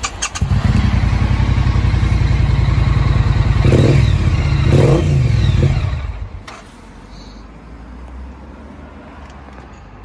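2018 Triumph Street Twin's 900 cc parallel-twin engine starting up and running through aftermarket exhausts, loud and close, revved twice about four and five seconds in. About six seconds in it settles to a much quieter steady idle.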